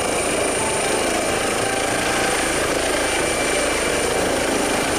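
Steady helicopter rotor sound with a thin, high whine over it, running evenly.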